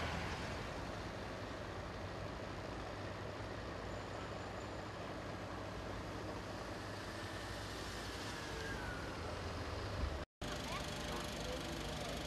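Steady outdoor ambience dominated by the low drone of an idling vehicle engine, with faint voices in the background. The sound cuts out abruptly for an instant about ten seconds in and then resumes.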